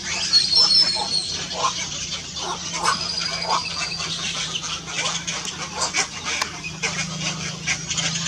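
Black-crowned night herons at their nests giving harsh croaking calls, many short calls overlapping throughout, with scattered clicks among them.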